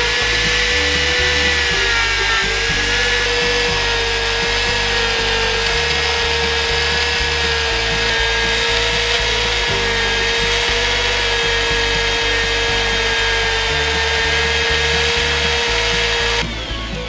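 Handheld rotary tool with a small abrasive wheel running at a steady high whine as it grinds a small steel revolver part, cutting off near the end. A background music track with a steady beat plays under it.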